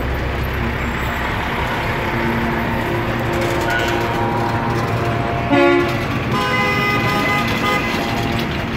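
Vehicle horns honking over the rumble of passing traffic: a short, loud blast about halfway through, then a longer held horn for about a second and a half.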